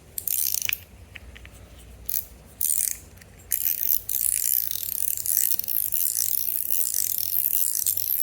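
Top B EDC Showhand metal fidget toy being worked in the hand, giving rapid metallic clicking and clacking. It comes in short bursts at first, then runs almost without a break from about three and a half seconds in.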